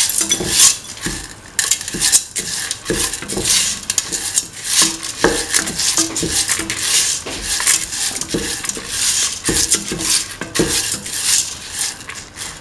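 Wooden spatula scraping and knocking around a stainless steel pan, stirring mung beans in a few repeated strokes.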